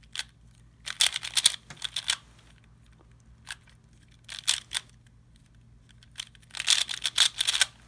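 Plastic 3x3 speed cube being turned fast by hand, its layers clacking in quick flurries of clicks: one about a second in, a shorter one around four and a half seconds, and the longest near the end, with brief pauses between.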